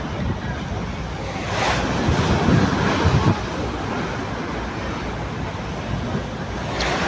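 Sea waves washing, with wind blowing across the microphone. A wave surges about a second and a half in and lasts roughly two seconds, and a shorter one comes near the end.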